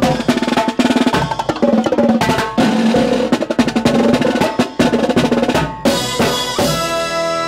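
Marching brass band playing: rapid snare and tenor-drum strokes and cymbal crashes under sustained brass and saxophone notes. About six seconds in, the drumming drops back and the band holds long chords.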